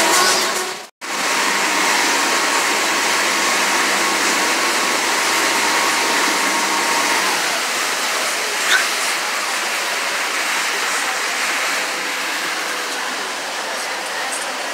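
Powerboat underway on open water: a steady rush of wind and water noise. The sound cuts out for an instant about a second in, and there is one short sharp sound just before the ninth second.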